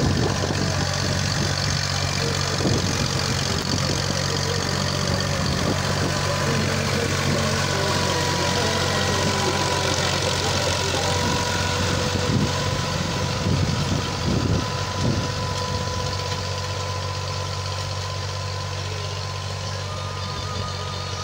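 Farm tractor's diesel engine running steadily as it pulls a rotary tiller through the soil, with a few louder knocks about two-thirds through. The sound eases off slightly near the end as the tractor moves away.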